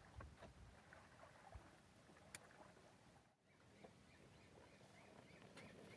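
Near silence: faint background hiss with a few soft ticks, cutting out completely for a moment about halfway through.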